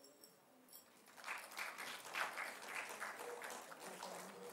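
Audience applauding. The clapping starts about a second in and carries on steadily.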